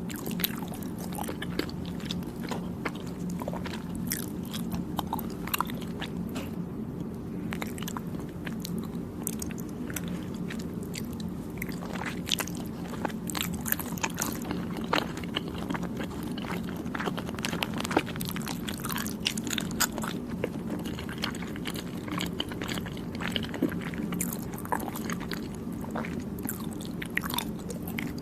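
Close-up chewing and biting of soft, chewy Thai desserts (khanom Thai): wet clicks and smacks come at irregular intervals over a steady low hum.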